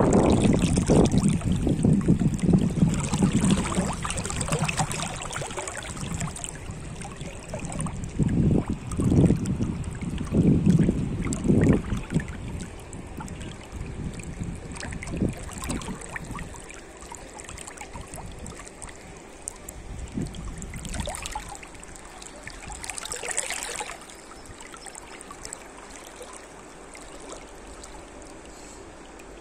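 River water flowing and rippling over a shallow stretch close to the microphone. Louder with low rumbling gusts through roughly the first twelve seconds, then quieter and steadier.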